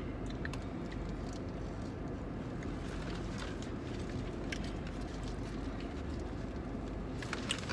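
Steady low hum inside a car cabin, with a few faint clicks and smacks from people eating chicken sandwiches.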